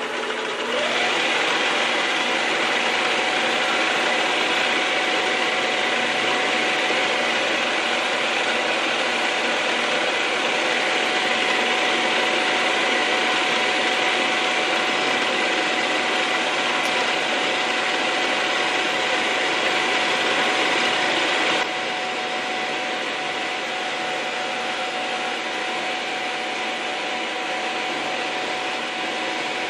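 Milling machine spindle starting up and running while an end mill cuts a pocket into a metal tool-holder block. A steady motor whine under the hiss of the cut rises to speed in the first second and drops a little in level about three-quarters of the way through.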